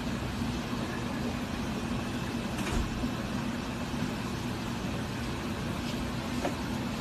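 Steady low machine hum with a faint hiss over it, and a brief tick a little before the middle.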